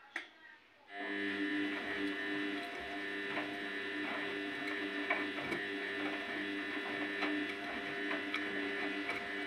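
Front-loading washing machine's drum motor starting up about a second in after a click, then running with a steady whine as the drum tumbles a wet, heavy blanket through the wash, with faint ticks and knocks from the load.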